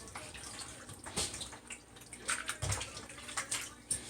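Water splashing and sloshing as raw chicken pieces are rinsed by hand in a bowl of water, in irregular splashes, with a dull thump a little past halfway.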